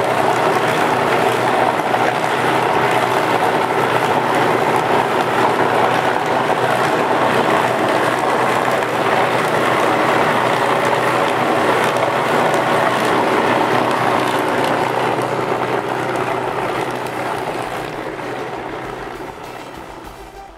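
50-litre bowl cutter running at high speed, its knives and rotating bowl chopping meat batter into a fine emulsion for frankfurters: a steady, dense mechanical whir. The sound dies away over the last five seconds or so.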